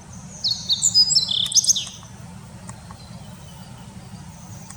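Small songbirds calling: a quick burst of high, short, overlapping chirps lasting about a second and a half, then a few faint notes, over a steady low rumble.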